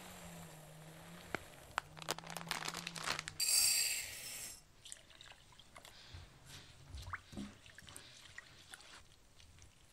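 Dry rice poured into a glass mug, the grains clicking against the glass, then tipped out into a bowl in a loud rush about three and a half seconds in. Afterwards, quieter sloshing as a hand rinses the rice in water.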